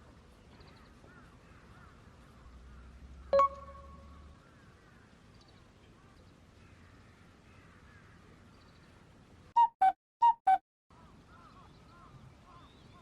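A single sharp ringing ding about three seconds in, then near the end four short, loud honk-like tones in quick succession over faint background chirping.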